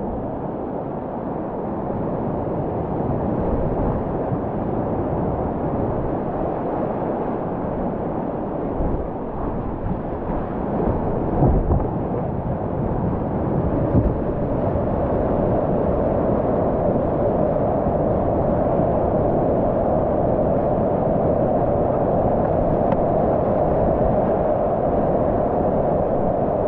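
Whitewater rapids rushing and churning around a kayak, a steady loud noise of turbulent water. There are two sudden thumps about halfway through, roughly three seconds apart.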